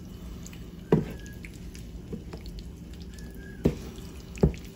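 Wooden spoon stirring chicken pieces through thick curry sauce in a nonstick skillet: wet squelching with four sharp knocks of the spoon against the pan, loudest about a second in and near the end.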